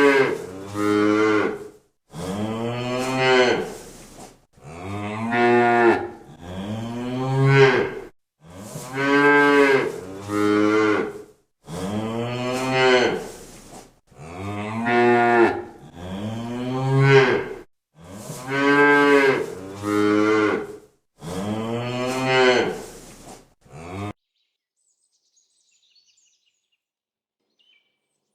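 Cow mooing: a drawn-out, pitched moo with a shorter one after it, the pair repeated in a steady rhythm about every three seconds, eight times. The calls stop about 24 seconds in.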